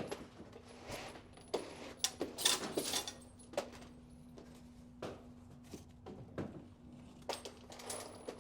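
Scattered clicks, clatter and rustling of gear and small objects being handled and packed up, over a steady low hum.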